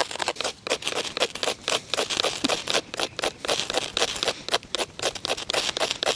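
A ferro rod being struck again and again to throw sparks onto a bed of wood shavings: quick, sharp scraping strokes, several a second, that keep going without a break.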